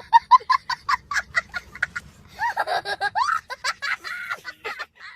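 High-pitched giggling laughter in quick repeated bursts, then longer laughs that rise and fall in pitch.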